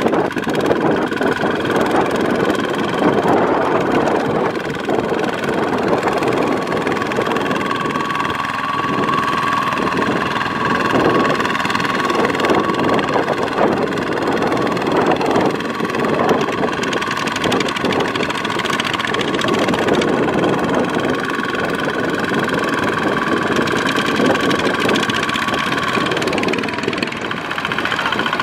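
Single-cylinder diesel engine of a two-wheel walking tractor running steadily under load as the mud-clogged tractor works through a wet rice field.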